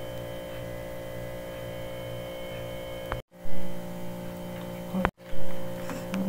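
Steady electrical hum made of several held tones. It cuts out briefly twice, once a little past the middle and once near the end, each time followed by a short loud jump.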